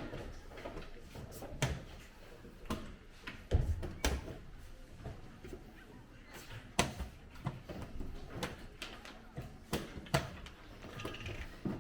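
Sharp wooden clicks and knocks at irregular intervals, one every second or two, with a heavier low thump about three and a half seconds in, typical of checkers pieces set down on a board and a game clock pressed, over a faint murmur of voices.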